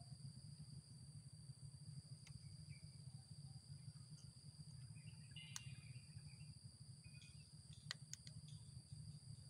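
Near silence: a faint, steady, high-pitched drone of insects in forest undergrowth, with a few faint chirps and ticks and a low steady hum underneath.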